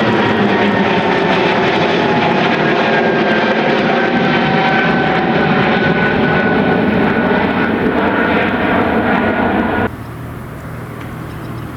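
Airliner engines passing loud and close, with whining tones that slowly fall in pitch. About ten seconds in the sound cuts off abruptly, giving way to a quieter steady low hum.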